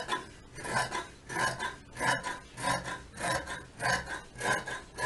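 Large tailor's shears cutting through several folded layers of fabric on a table, closing in a steady run of crunchy snips about every half second or so.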